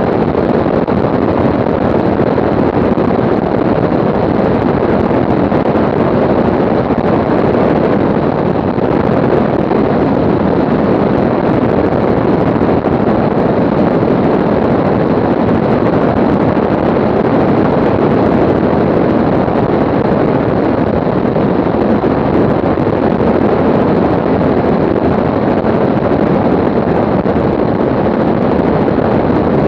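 Steady, even rush of airflow and engine noise from an aircraft in flight, with wind on the microphone.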